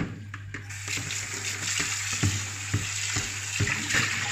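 Kitchen tap turned on about a second in and running steadily into a bowl in the sink to rinse cut tripe, with several light knocks from the stainless steel colander as it is handled.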